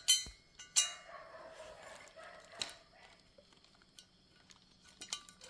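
Small metal cylinder-head parts clinking against each other and the bench as they are handled. Two sharp, ringing clinks come within the first second, followed by a few lighter taps.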